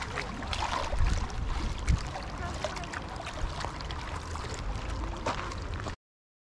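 Small waves lapping at the edge of a lake with wind rumbling on the microphone, a soft wash with scattered little splashes. The sound cuts off suddenly near the end.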